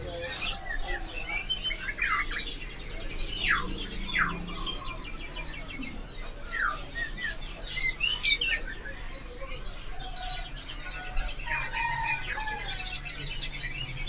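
Many caged songbirds chirping and calling at once: short whistled notes, quick up-and-down slides and a few rapid trills, overlapping one another.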